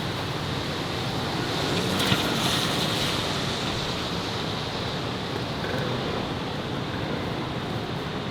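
Steady city street noise with a brief swell about two seconds in, starting with a sharp click.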